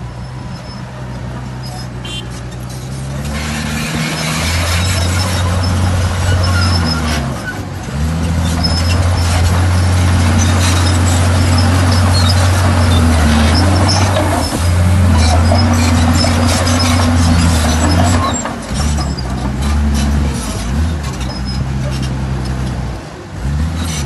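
Komatsu D51PX bulldozer at work: its diesel engine drops and recovers in pitch as it takes load, and from about three seconds in to about eighteen seconds a loud scraping and squealing of steel tracks and pushed soil and stone rides over it.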